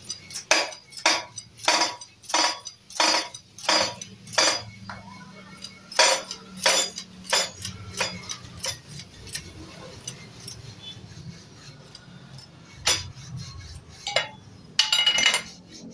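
Metal being struck with a hammer in steady, ringing blows, about one and a half a second: a run of seven, a short pause, a second run of several, then a few scattered strikes.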